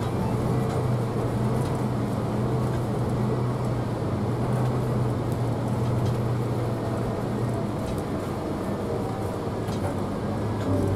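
Steady drone of a Scania K360 coach under way, with its engine hum and road noise, and faint scattered rattles as it rides a badly broken road.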